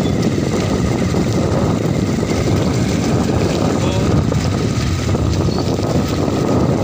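Wind buffeting the phone's microphone while riding along in a moving vehicle: a loud, steady, gusting rumble.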